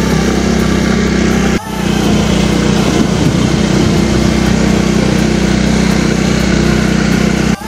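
Small motorcycle engine running steadily while riding, with a steady hum of engine tones. The sound drops out briefly about a second and a half in and again near the end.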